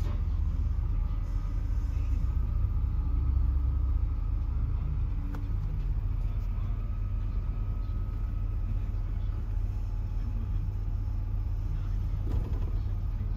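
Steady low engine rumble, heard from inside a pickup truck's cab, with a single small click about five seconds in.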